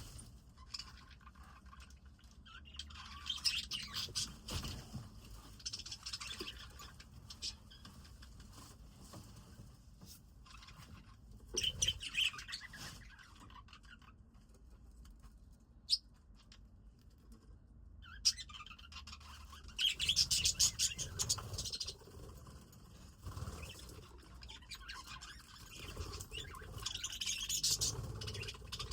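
Budgies chirping and chattering in several bursts of fast, high twittering, with quieter gaps between; a single sharp click about midway.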